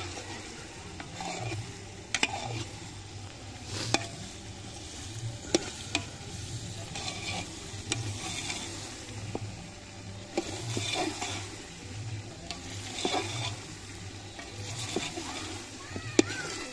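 Metal ladle stirring sliced onions as they fry in an open metal pot, the sizzle swelling and fading with each stroke, with a few sharp clinks of the ladle against the pot.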